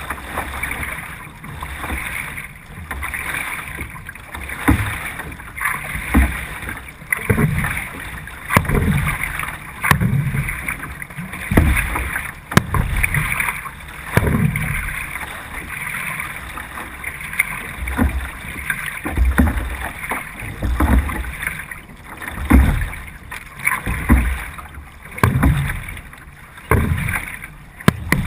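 C1 sprint canoe paddled hard: a low thump with a splash at each paddle stroke, about three strokes every four seconds, over a steady rush of water and wind on a bow-mounted action-camera microphone.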